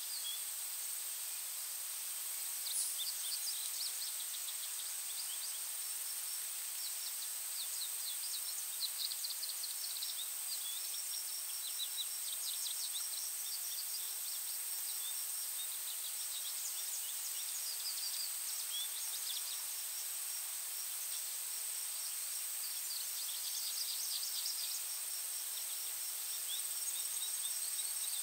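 Forest birds chirping and twittering in runs of quick high notes, over a steady high-pitched insect drone and a soft hiss.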